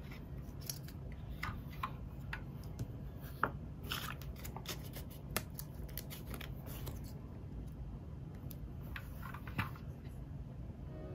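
Plastic building bricks being handled and pressed together: scattered small clicks and short scrapes over a low steady hum.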